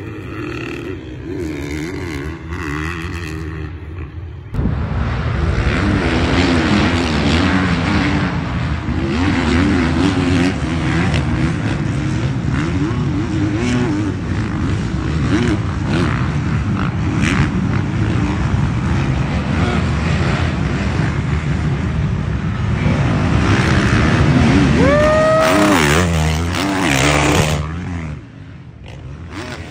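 A pack of off-road dirt bikes racing at full throttle, many engines revving together with pitches wavering over one another. It grows suddenly louder about four seconds in and drops off near the end.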